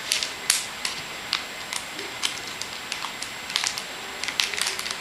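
A see-through plastic baseball-card pack and its cards being handled, crinkling in a scatter of short crackles and clicks.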